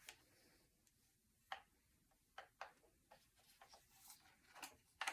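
Faint, scattered clicks and taps of ring light and tripod parts being handled and taken apart, about a dozen at uneven intervals.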